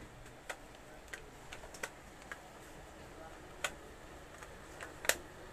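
Irregular light clicks of a flat iron and hair-styling tools being handled while hair is sectioned and straightened, about eight clicks at uneven intervals, the loudest near the end.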